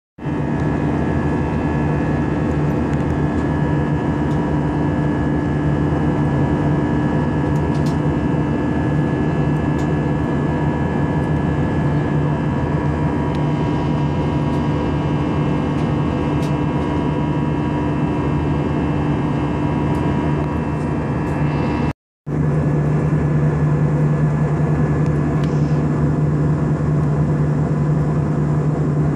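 Airbus A320 jet engines heard from inside the passenger cabin: a steady drone with a low hum and a few steady tones. The sound cuts out for a moment about 22 seconds in.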